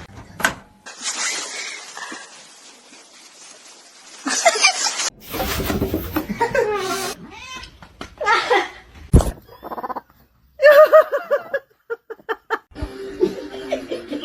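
A run of short clips with abrupt cuts between them, mostly people laughing, with some cat sounds.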